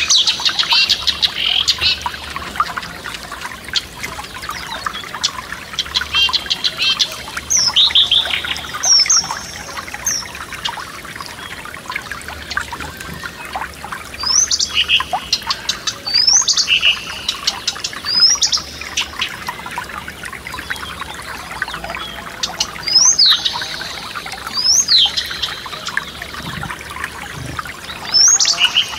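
Songbirds singing over the steady trickle of a forest stream. A fast trill opens, then short, sharp whistled phrases sweep up and down, repeated every second or two.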